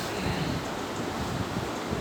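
Steady, even hiss of background noise, with no distinct cracks or knocks.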